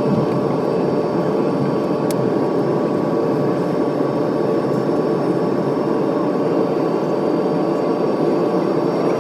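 Steady cabin noise inside an Airbus A320neo after landing: the engines and air systems producing a continuous rumble with a thin steady whine over it, and one faint click about two seconds in.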